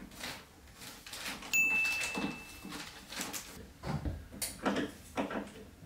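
Scattered knocks and clatter of wooden flat-pack wardrobe panels and fittings being handled during assembly, with a brief high steady tone about a second and a half in.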